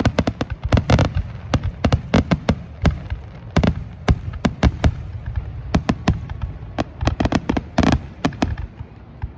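Fireworks grand finale: a rapid barrage of aerial shell bursts, several sharp bangs a second in irregular volleys, with a longer burst about eight seconds in.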